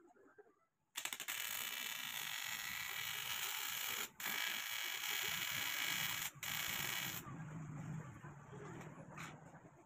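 TIG welding arc on an aluminium motorcycle rear hub's sprocket carrier: a loud, steady buzzing hiss that starts about a second in, breaks off briefly twice, and stops about seven seconds in.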